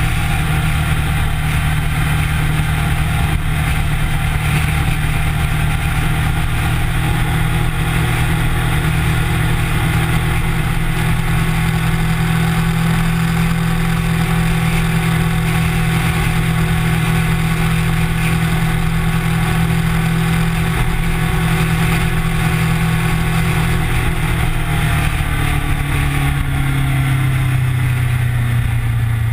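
Kawasaki Ninja sport bike engine running at a steady cruising speed, heard close up from a camera mounted on the bike, with wind and road noise over it. Over the last few seconds the engine note falls as the bike slows.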